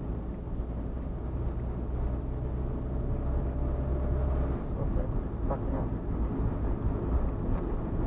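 Driving noise from the vehicle being driven: a steady low rumble of engine, tyres and wind that eases about halfway through.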